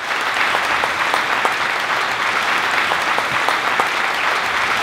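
An audience applauding: many hands clapping in a steady, dense patter.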